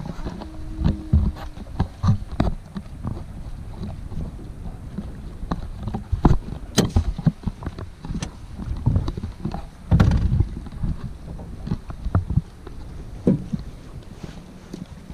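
Irregular knocks and thumps on a 2019 Bass Tracker Classic's aluminium hull and deck as a person in flip-flops steps and shifts about the boat.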